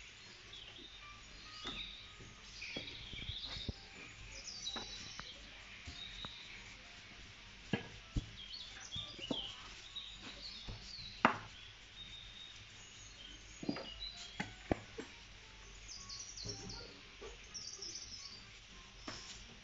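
Dough being rolled out on a wooden board: a scatter of sharp knocks, the loudest about halfway through, over steady chirping of birds.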